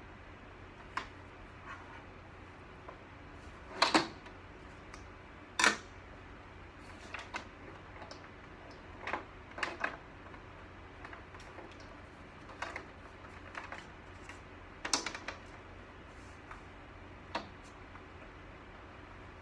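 Irregular clicks and knocks of plastic and metal parts as a medical computer cart's work surface and fittings are handled and adjusted, with two louder knocks about four and six seconds in and another near fifteen seconds.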